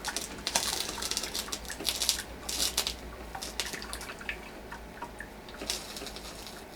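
Drip coffee maker brewing hot water into its pot: irregular hissing spurts and drips, with small ticks between them.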